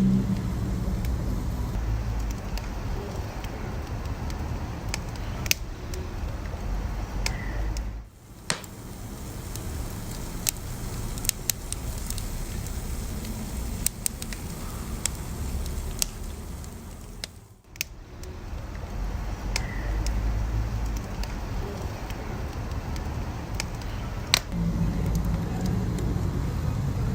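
Wood fire burning, with a steady low rumble under scattered sharp crackles and pops. The sound dips briefly twice, about eight seconds in and again near the middle.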